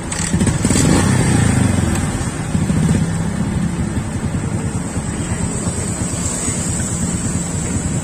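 Yamaha LC135's single-cylinder four-stroke engine running, heard close up. It picks up about half a second in and stays up for a couple of seconds, swells again briefly near three seconds, then settles into a steady run.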